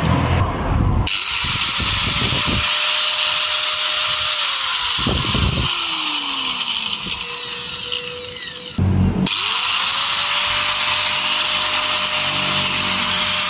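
Bosch angle grinder switched on twice: each time the motor spins up to a steady high whine, runs a few seconds, then winds down. It runs, showing that the replacement power cord has fixed it.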